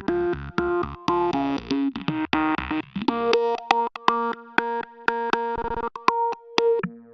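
Electronic synthesizer music with held notes chopped into a stop-start rhythm by sharp beats. It cuts off abruptly near the end.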